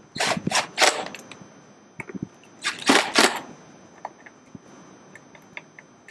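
Cordless drill/driver driving screws to fasten a console lid hinge, in short bursts. Three quick bursts come just after the start and three more about three seconds in, with faint clicks between.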